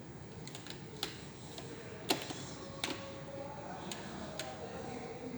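A handful of sharp, separate clicks and taps, about five, the loudest about two seconds in, from hands and tools working on an all-in-one PC's plastic casing during reassembly.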